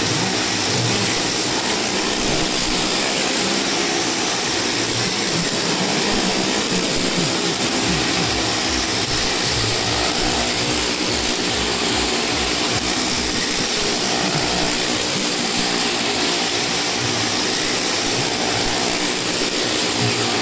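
Car engines and a motorcycle engine running hard as they circle the wall of a well-of-death arena: a loud, steady drone with no let-up.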